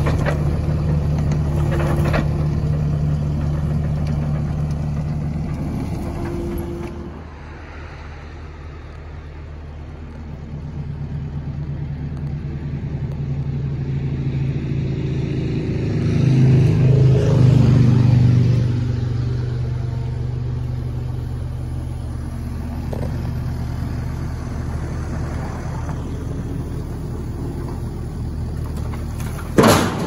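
Kubota compact track loader's diesel engine running steadily, growing louder for about two seconds past the middle. Near the end comes a sudden loud clatter as split firewood tips out of a pallet crate into a dump trailer.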